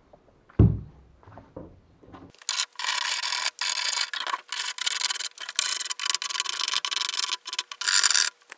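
A single thump about half a second in, then from about two seconds in a hand plane scraping along the wooden edge of a boat hull in quick repeated strokes, about two a second. The plane is rounding the edge over so that fiberglass tape will wrap around it.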